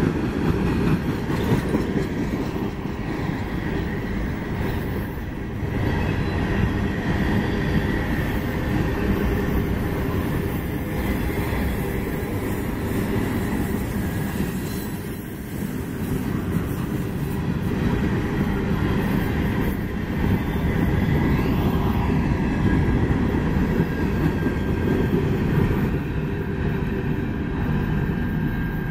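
Freight train of tank cars and covered hoppers rolling past close by: a steady rumble of steel wheels on the rails, with a faint high-pitched squeal from the wheels.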